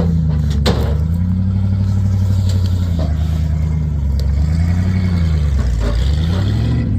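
Old Ford F-150 truck engine working hard under heavy load while towing a dead backhoe, its revs rising and falling in four or five slow swells. There is a sharp knock about two-thirds of a second in.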